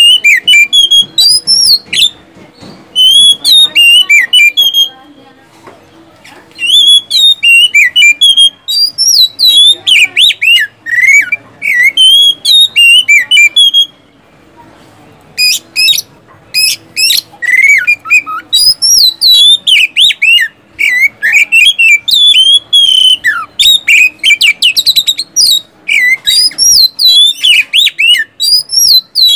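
Oriental magpie-robin (kacer) singing loudly: rich whistled phrases of quick, sliding notes mixed with sharp high clicks, in bursts with short pauses about five and fourteen seconds in.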